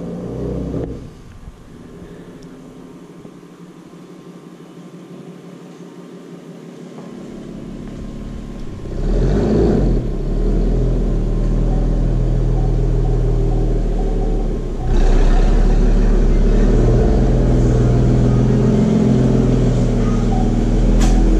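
Ford Mustang convertible's engine, faint at first, growing louder from about eight seconds in as the car drives up and pulls into the garage, then running steadily at low speed close by, a step louder again about two-thirds of the way through.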